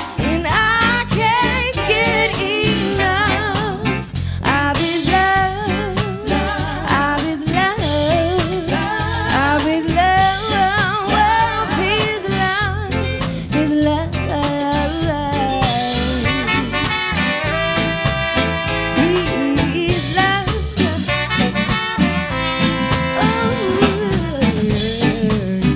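Live rocksteady/reggae band music: bass and drum kit keeping the groove under guitar and keyboards, with a wavering lead melody in the first half. From about halfway through, held steady chords take over.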